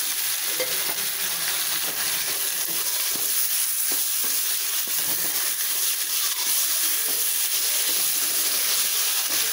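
Chopped tomatoes and vegetables sizzling steadily as they sauté in oil in a pan, stirred now and then with a spoon.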